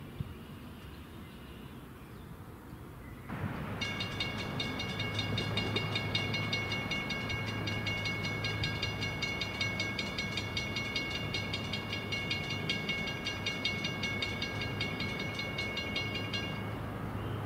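Grade-crossing warning bell ringing rapidly and steadily, starting a few seconds in and stopping shortly before the end, over the low hum of an approaching NJ Transit ALP-46A electric locomotive.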